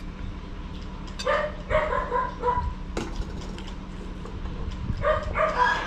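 A small dog yapping in two short runs of quick barks, one about a second in and one near the end, with a single sharp click in between.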